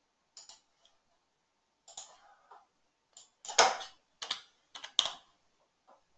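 Keystrokes on a computer keyboard: a handful of separate taps with pauses between them, the loudest about three and a half seconds in and again near five seconds.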